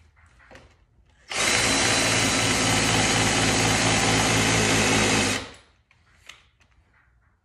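Handheld electric power tool running steadily at full speed for about four seconds, starting suddenly about a second in and then stopping, with a few faint clicks of handling around it.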